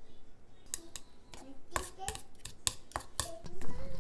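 Chopsticks clacking against a small stainless steel bowl while stirring ume plum paste with mirin, a quick run of sharp clicks. Near the end, green beans tumble from a colander into the steel bowl with a louder clatter.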